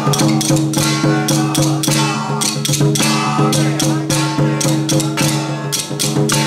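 Taiwanese temple ritual music: a steady low drone under a wavering melody, with quick, irregular percussion strikes.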